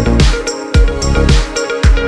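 Background electronic music with a steady drum beat and bass line.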